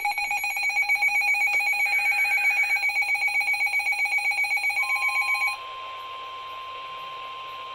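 Weather alert radio's warbling electronic alarm, which cuts off after about five and a half seconds. It leaves the NOAA Weather Radio 1050 Hz warning tone sounding steady and quieter over radio hiss, the signal that a warning is about to be broadcast.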